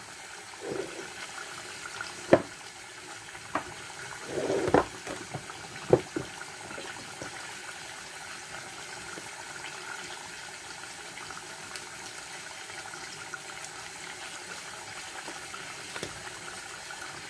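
Beef cubes cooking in butter and oil in a stainless saucepan on a gas burner: a steady bubbling sizzle. A few sharp knocks come in the first six seconds and once more near the end.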